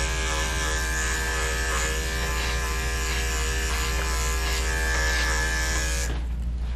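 Corded electric dog clippers running steadily against a dog's coat, then cutting off abruptly about six seconds in.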